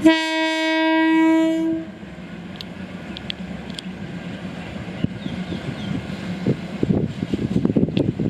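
Train horn sounding one long, single-pitched blast of about two seconds, followed by the steady running noise of a passing train, with scattered clicks from the wheels on the rails.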